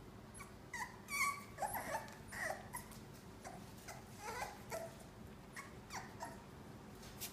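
Young puppies whimpering and yipping in many short, high calls, some sliding in pitch, while they play-fight together.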